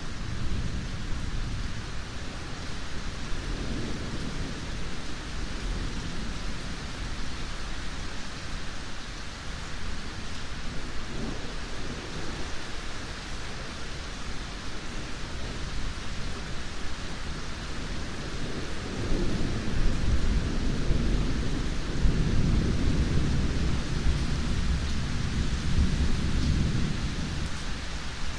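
Steady rain falling with distant thunder rumbling underneath. The rumble swells a few times and grows strongest about two-thirds of the way through before easing near the end.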